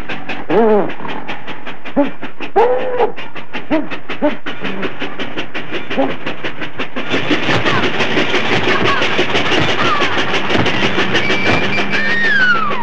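Cartoon steam locomotive chugging in a rapid, even rhythm, growing louder and hissier about seven seconds in. In the first few seconds a dog gives short yelps that rise and fall in pitch. Near the end a steam whistle blows and then slides down in pitch.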